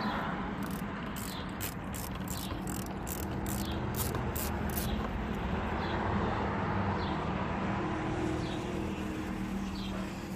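Hand socket ratchet clicking as 7mm door-panel bolts are worked loose: a run of quick, even clicks for about the first five seconds, then a few scattered clicks. A steady low hum runs underneath.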